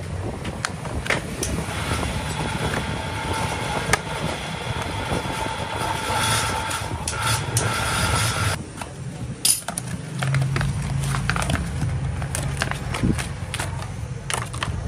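Workshop machinery running with a steady hum, broken by scattered sharp clicks and metal knocks; the noise drops briefly past the middle, and a low hum comes in soon after.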